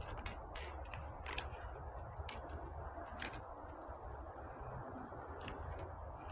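Scattered light clicks and taps from hands working cord on a kayak, about eight at irregular intervals, over a steady low background rumble.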